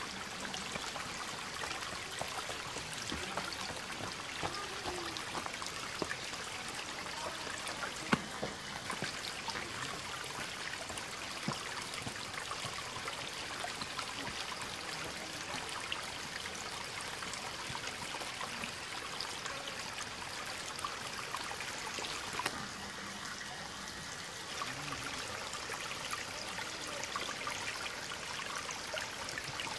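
Shallow spring-fed stream trickling steadily over mossy stones and small cascades. A single sharp click about eight seconds in.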